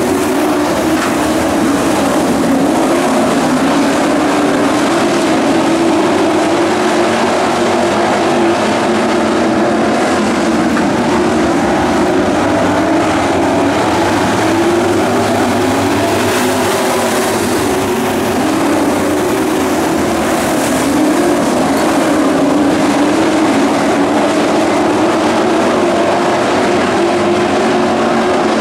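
A pack of pro trucks racing on a dirt oval. Their engines run hard together in one steady, loud drone, the pitch rising and falling as the trucks come and go.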